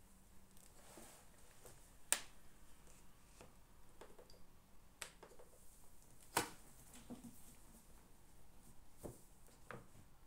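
Faint scattered clicks and taps, with two sharper clicks about two and six seconds in.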